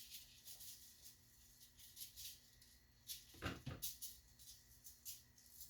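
Faint scattered clicks and light knocks from handling things in the kitchen, with a louder knock about three and a half seconds in.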